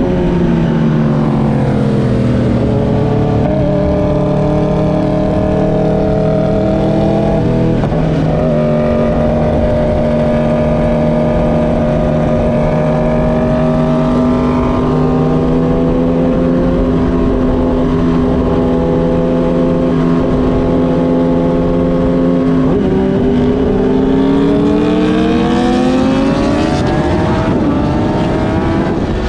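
Sport motorcycle engine running at speed on the highway: the pitch drops as it eases off, steps once about seven seconds in, holds steady for a long stretch, then climbs as it accelerates again near the end.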